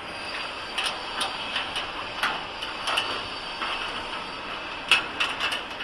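Metal conveyor chain clinking and rattling as it is fed by hand over the tensioning sprockets, in irregular clicks with a cluster of louder ones near the end.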